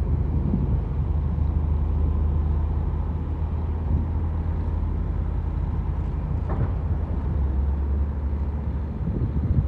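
Heavy diesel dump truck engine running with a deep, low rumble as a loaded truck pulls away. The engine note drops lower about three-quarters of the way through.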